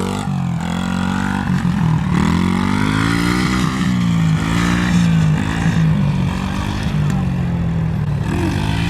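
SSR 70 dirt bike's small four-stroke single-cylinder engine running under a young rider, its pitch rising and dropping several times as he works the throttle and shifts through the gears.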